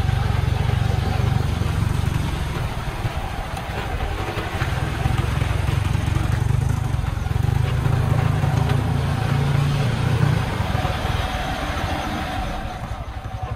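Diesel engine of a loaded dump truck running as it drives along a dirt road: a steady low rumble that fades near the end as the truck pulls away.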